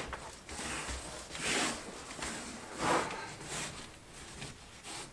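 A man's heavy breathing: several noisy breaths about a second or so apart as he strains on his back, pressing panels up overhead.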